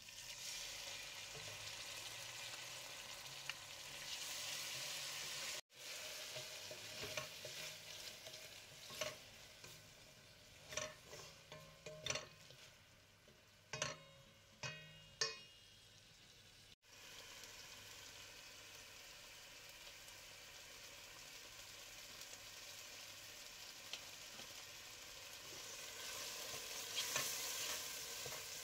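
Onions and tomato paste sizzling in oil in a stainless steel pot while a wooden spoon stirs them, scraping and knocking against the pan; the paste is being fried into the base of a sauce. Sharp spoon knocks come in a cluster through the middle, and the sizzle cuts out abruptly twice.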